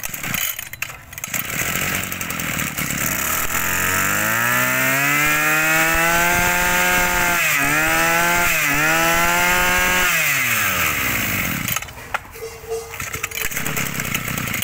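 Maruyama MBS 2630T brush cutter's two-stroke engine pull-started by its recoil cord. It catches within the first couple of seconds, speeds up with a rising pitch and runs fast, dipping briefly twice. It then winds down and stops a couple of seconds before the end, and the cord is pulled again near the end.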